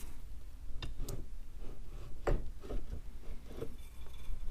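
Scattered light clicks and knocks of metal parts and tools being handled while an NP208 transfer case is taken apart, about five over a few seconds.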